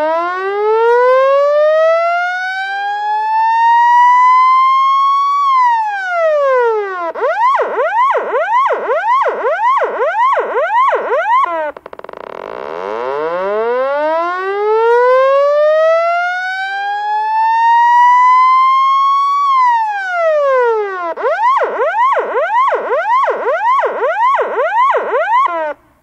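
Electronic police siren sounding loud, going through its cycle twice. Each time, a slow wail rises for about five seconds and drops back, followed by several seconds of fast yelp at about two to three pitch sweeps a second. The sound briefly cuts out about halfway, and again at the end, as the recording starts over.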